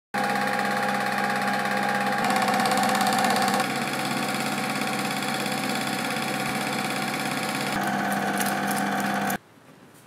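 Eumig film projector running: a steady fast clatter from the film-advance mechanism over a motor hum, which cuts off suddenly near the end.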